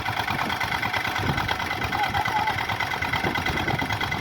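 Swaraj 855 tractor's diesel engine running steadily with a fast, even chug.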